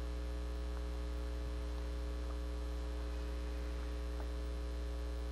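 Steady electrical mains hum in the sound system: a low buzz with fainter steady tones above it and light hiss, with a couple of very faint ticks.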